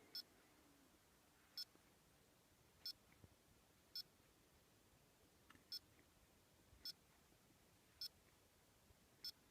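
Faint short high-pitched electronic beeps, eight of them, about one every second and a quarter, against near silence.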